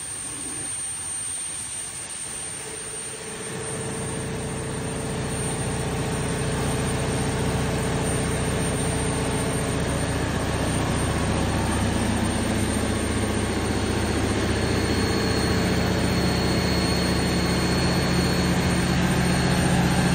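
Cummins KTA38 V12 turbocharged diesel engine of a 1000 kW generator set running steadily, with a deep, even hum. It gets louder and fuller in the low end from about three seconds in, and a faint high whine joins about two-thirds of the way through.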